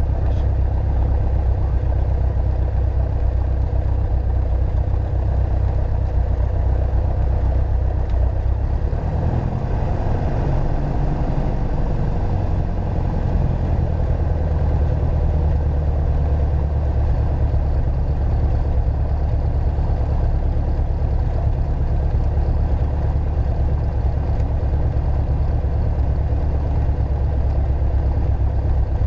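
Piper Archer II's four-cylinder Lycoming O-360 engine running at low power, heard from inside the cockpit during the landing roll-out. The note wavers for a few seconds about nine seconds in, then settles steady.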